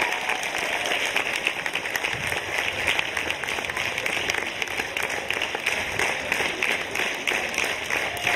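Audience applauding: dense, even clapping from a full hall.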